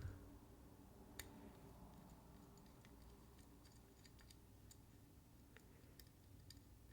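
Near silence with faint, irregular light clicks, about ten of them spread over several seconds: small metal driver and screw contacts while working on a folding knife's screws.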